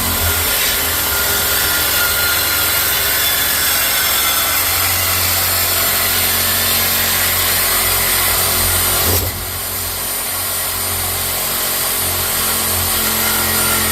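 Power saw cutting through old exhaust pipe under a car, running steadily. It gets quieter about nine seconds in and keeps going.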